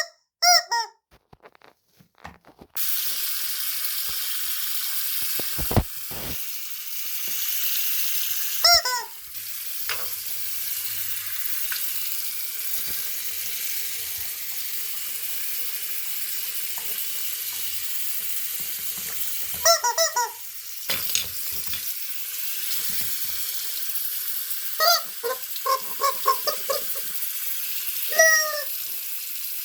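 A rubber chicken toy squeaking in short, wavering squeals several times, over a steady hiss of running tap water that starts about three seconds in.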